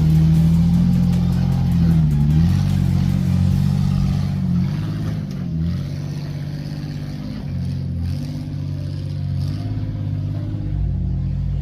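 Off-road 4x4 vehicle's engine running under varying throttle, its pitch rising and falling several times.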